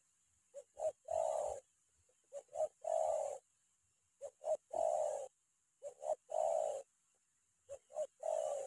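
Spotted dove cooing in the rapid, closely repeated 'tekanan' (pressure) call used to lure wild doves: five phrases, each two short notes followed by a longer coo, one about every one and a half to two seconds.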